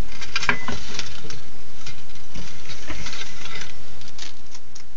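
Irregular light clicks and scratches on a hard surface, thick for about four seconds and thinning out near the end.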